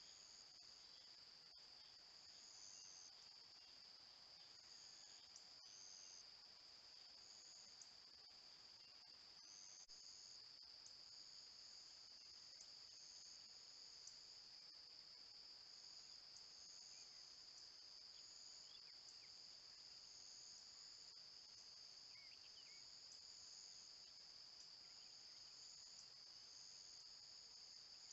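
Faint, steady chorus of insects: a continuous high-pitched trill with a second, pulsing trill above it.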